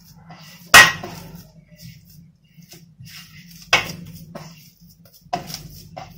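Hand kneading crumbly semolina dough in a large brass bowl: soft rubbing and scraping, with three sharp knocks against the bowl. The loudest knock is about a second in, and the others come near four and five and a half seconds. A faint low hum runs underneath.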